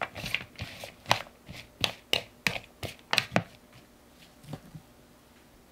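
Spoon tossing julienned golden zucchini strips with salt in a glass bowl: a run of irregular crisp clicks and taps for about three and a half seconds. A single faint knife tap on a wooden cutting board comes a second later.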